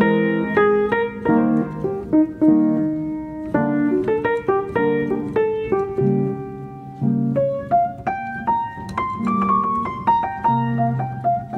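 Background piano music: a continuous run of single notes over lower held notes.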